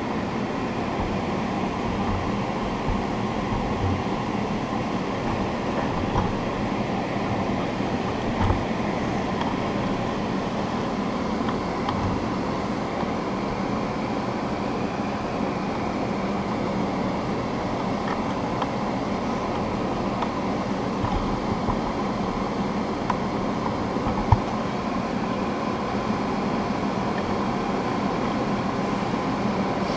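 Steady drone of an electric box fan running as a fume extractor, drawing air through a flexible duct while a toaster oven heats circuit boards. A few faint ticks, with one sharper click about 24 seconds in.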